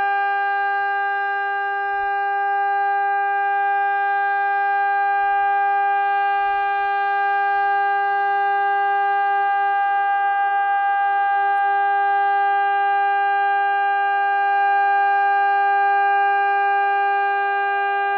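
Warning siren sounding one steady tone at a constant pitch, with no rise or fall.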